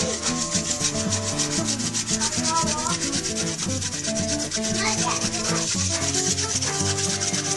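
Hand-drill friction fire: a queen palm seed pod stem spindle spun back and forth between the palms in a hearth board of the same stem, rasping wood on wood in a fast, even rhythm of strokes as it drills for an ember.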